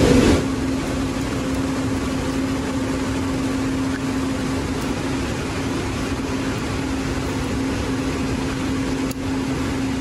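Server rack cooling fans and data-center air handling running steadily: an even whooshing noise with a steady low hum.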